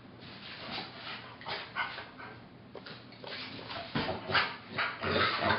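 Bernese Mountain Dog whining and woofing in a string of short bursts, louder near the end, in a dramatic protest at the smell of hand sanitizer held to its nose.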